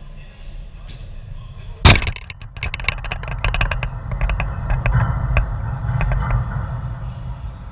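A loud knock right at the microphone about two seconds in, followed by a few seconds of rattling and clicking as the camera is jolted and shifted against the wire-mesh fence it is fixed to, with a low rumble underneath.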